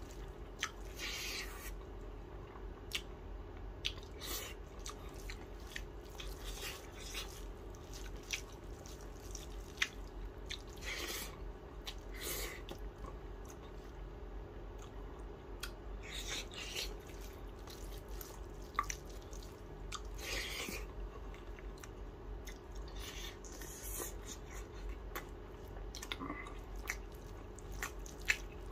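A person eating by hand: chewing with wet mouth smacks and irregular short clicks, along with fingers mixing and squishing rice on a steel plate.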